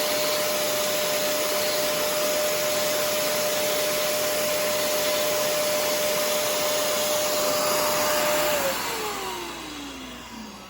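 Shark CarpetXpert carpet cleaner's suction motor running steadily with a high whine, then switched off about eight and a half seconds in and winding down, its whine falling in pitch as the noise fades.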